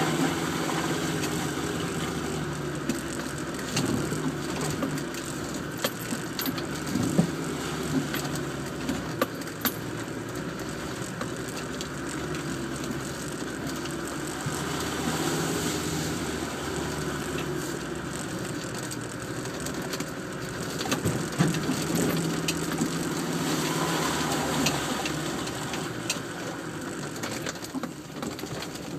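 Land Rover Defender's engine running at low revs, heard from inside the cab, its pitch rising and falling with the throttle. Scattered knocks and rattles come from the body and suspension as it crawls over a rutted mud track.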